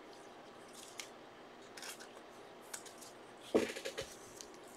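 Faint handling of trading cards: a few soft flicks and slides as cards are moved through the stack, with a louder rustle about three and a half seconds in.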